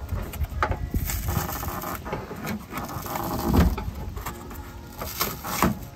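Irregular knocks, taps and rustling as hands work along the underside of a travel trailer's frame and underbelly, with a heavier thump about three and a half seconds in and a few sharp clicks near the end.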